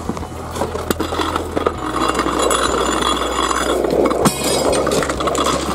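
Metal gear clinking and rattling as a large-diameter hose and its strap are pulled off a fire engine and carried toward a hydrant, with a sharp knock about four seconds in.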